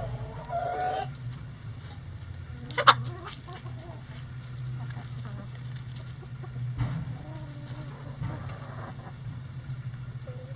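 Backyard hens clucking, with short wavering calls near the start, again later, and at the very end, over a steady low hum. A single sharp knock about three seconds in is the loudest sound.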